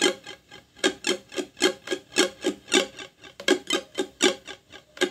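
Ukulele strummed slowly in an even rhythm of short down-and-up strokes, about four a second, with a brief pause just after the start. Open-position suspended-fourth chords are being played.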